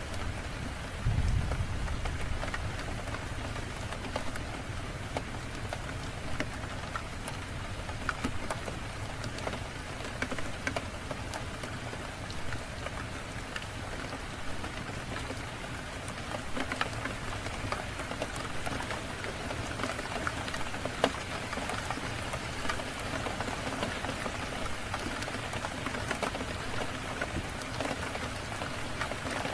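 Steady rain falling, with scattered sharp drop ticks throughout and a brief low rumble about a second in.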